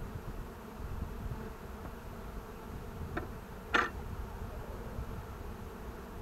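Honeybees buzzing steadily around an opened hive. Two short clicks or knocks sound a little past the middle, the second louder.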